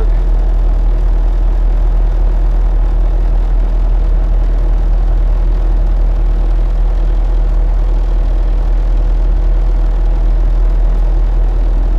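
Bobcat T300 skid-steer loader's diesel engine running steadily with a constant low hum.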